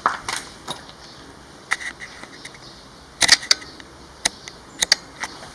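Scattered sharp clicks and knocks of someone walking up to a door and working its latch to open it. The loudest knock comes about three seconds in, and a quick pair of clicks follows near the end.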